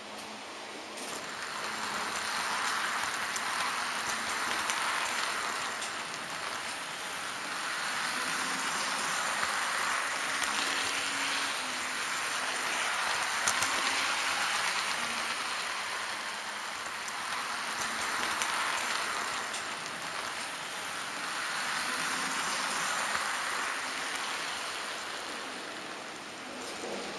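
HO-scale model train rolling along the track, heard from a camera car riding on it: a steady rushing noise of wheels on rails that swells and fades every few seconds, with a faint hum underneath.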